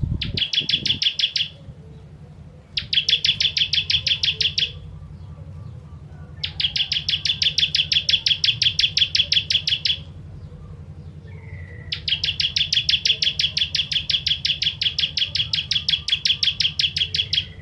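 Ciblek kristal, a prinia, singing in four bursts of fast repeated high notes, about a dozen a second. The bursts last from under two seconds to more than five, with a short rising note just before the last one. A steady low hum runs underneath.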